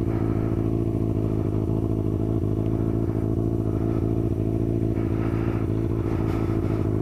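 2003 Kawasaki ZX-6R's 636 cc inline-four idling steadily through an aftermarket MotoGP-style exhaust.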